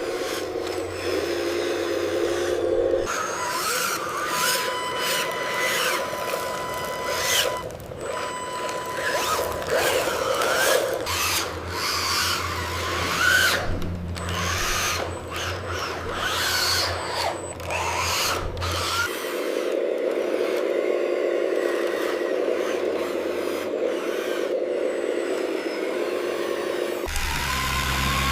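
AI-generated machinery sound for miniature RC construction vehicles: small electric motors and servos whirring and whining, with rising and falling whines, clicks and scraping, shifting abruptly several times as the scenes change.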